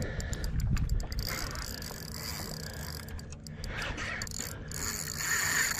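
Spinning reel being cranked under load as a hooked fish is reeled in: the reel's gears turn with a run of quick mechanical clicks, over a steady low rumble.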